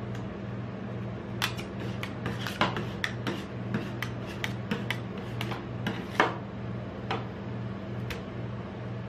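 Metal spatulas chopping and scraping ice cream mixture on the steel plate of a rolled-ice-cream cold pan: a string of sharp taps and scrapes, thickest in the middle, with one more near the end. A steady low hum runs underneath.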